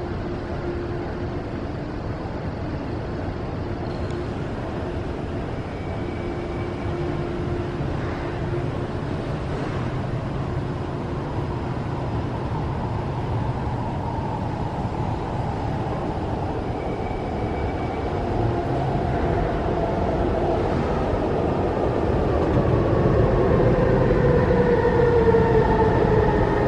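An SMRT C151 metro train pulling into an underground station. Its rumble builds steadily, and in the last several seconds a whine of several tones falls in pitch as the train slows.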